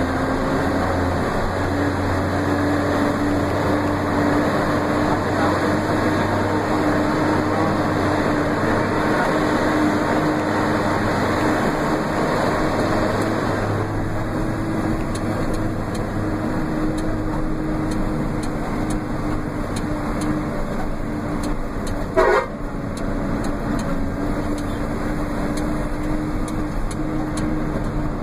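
A vehicle's engine running steadily with a held whine, heard from inside the cab, and one short horn toot about 22 seconds in.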